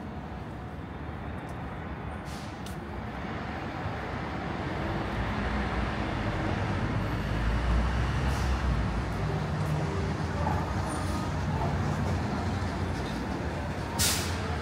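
Manhattan street traffic with a heavy vehicle's engine rumbling close by, swelling to its loudest about halfway through. A short, sharp hiss comes near the end.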